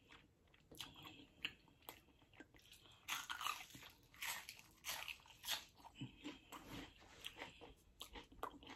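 A person biting into and chewing a crisp deep-fried onion ring. The crunches come thicker and louder about three seconds in, then go on as irregular crunching chews.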